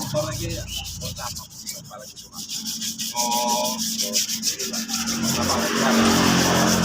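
Sandpaper rubbed back and forth on a motorcycle fuel tank by hand, in quick, even strokes, during hand sanding of the tank's surface. The scraping grows denser in the second half.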